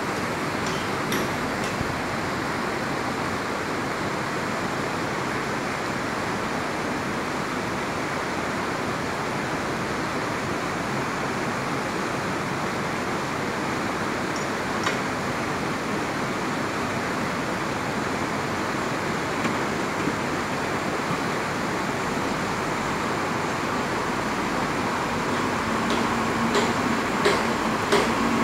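Steady rushing of a shallow river over rocks, mixed with the running of a Cat 320D long-reach excavator's diesel engine. Near the end a dump truck's engine comes close, with a few sharp knocks and rattles.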